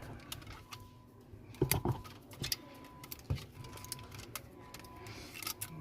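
Scattered light clicks and taps from small parts being handled and pressed into place on a phone during a repair, with a small cluster of clicks a couple of seconds in. A faint steady tone sits underneath.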